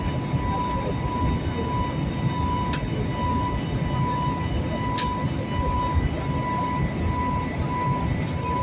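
Airliner cabin noise in flight: a steady rumble of engines and airflow with a thin, steady high whine over it, and two faint clicks about three and five seconds in.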